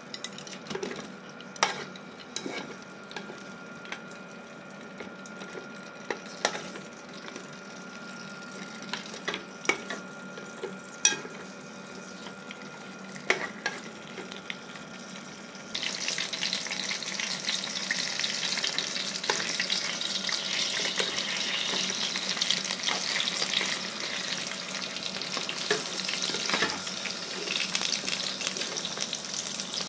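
Strips of dried snake meat frying in oil in a pan, sizzling, with sharp clicks of metal tongs against the pan as the pieces are turned. About halfway through, the sizzle suddenly becomes much louder and denser.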